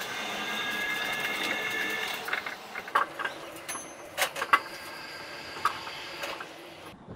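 Running sound from the cab of a Chiba Urban Monorail 0 Series suspended train, sped up fivefold. Several high steady tones sound for the first two seconds, then give way to a scatter of sharp clicks and ticks over a low hiss.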